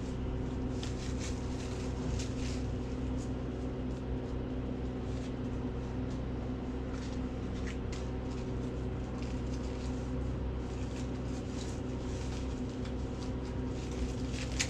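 A steady low machine hum made of several steady tones, with a few light clicks and rustles of handling over it.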